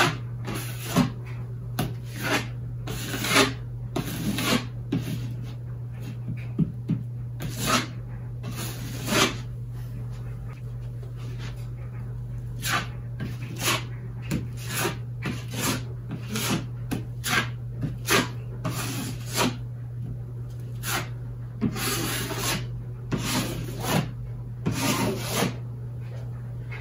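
Drywall knife spreading joint compound over a taped ceiling patch: a long run of short scraping strokes at irregular intervals as the first coat of mud is laid on.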